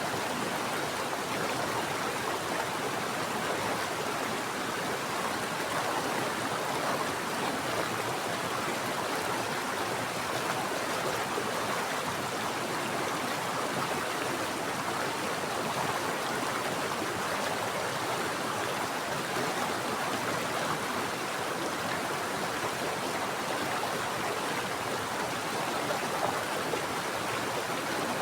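Water flowing and splashing over rocks in a mountain stream, a steady rushing.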